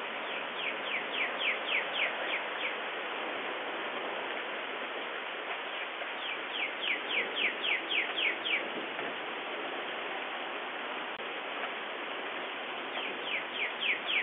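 Steady hiss of rain with a songbird singing through it: three runs of quick downslurred notes, about four a second. Each run lasts two to three seconds and comes back about every six seconds.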